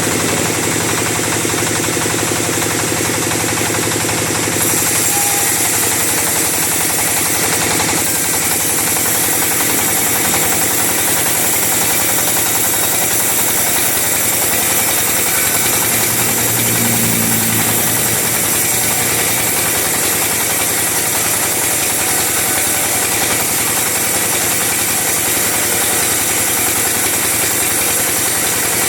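Chainsaw running steadily at high speed, cutting teak timber; the sound grows brighter about four and a half seconds in.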